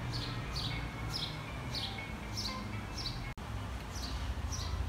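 A bird chirping over and over, a short falling chirp about every half second, over a steady low rumble of outdoor background noise. There is a brief dropout a little over three seconds in.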